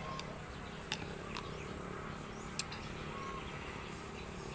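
Mouth sounds of biting into and chewing a ripe santol fruit: a few sharp wet clicks and smacks over a steady outdoor background, with a couple of faint short bird chirps.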